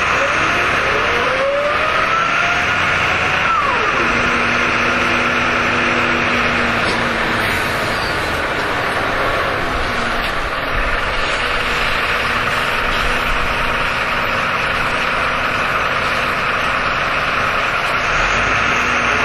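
Jelcz M121M city bus engine and drivetrain heard from inside the cabin, rising in pitch as the bus accelerates, then dropping sharply about three and a half seconds in as it shifts up. After that it runs steadily under continuous road and engine noise, and begins rising again near the end.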